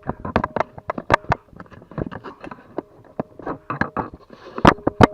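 Irregular clattering clicks and knocks of thick copper cable being handled and set up in a copper wire-stripping machine, busiest near the end, over a faint steady hum.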